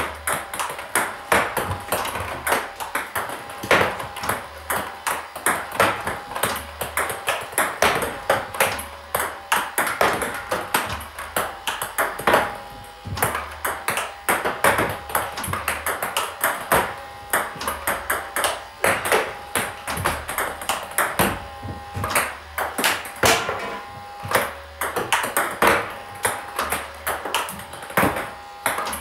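Table tennis ball bouncing on the table and struck by the bat in a steady run of backhand loops against underspin. Sharp ringing clicks follow one another throughout, the loudest about every second and a half.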